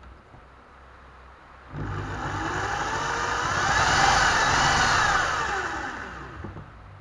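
Electric drill spinning a car alternator converted into a wind-generator motor, with a 220 V bulb wired to it as the load. The whine starts suddenly about two seconds in, rises in pitch as the drill speeds up, then falls as it slows and stops shortly before the end.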